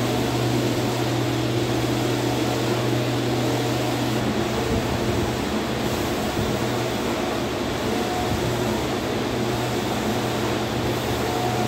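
Large-format flex banner printer running mid-print: a steady whirring hum of its motors and row of fans.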